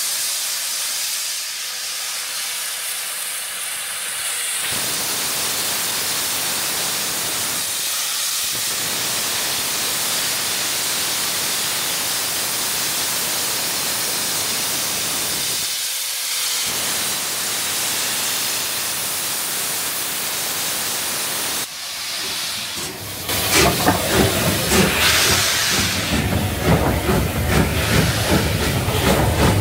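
Steam hissing steadily from the front of a Bulleid Battle of Britain class steam locomotive, with two short breaks. A louder, uneven noise takes over in the last several seconds.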